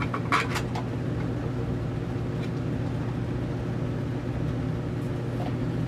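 A few sharp plastic-and-metal clicks about half a second in as the cover is pressed onto a well pump's pressure switch, over a steady low machine hum.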